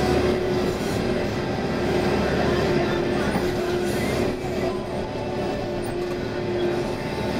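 Backhoe's diesel engine running steadily, with a steady whine held above the rumble.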